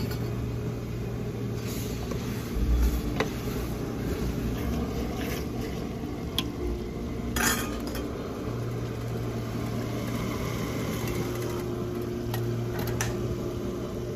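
Metal utensils clinking and scraping against an aluminium cooking pot as a tomato masala is stirred and served around, with a few sharp clinks standing out over a steady low background.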